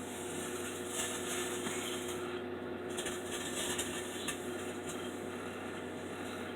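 Microwave oven running with a steady hum while it heats a banana, with a few faint clicks.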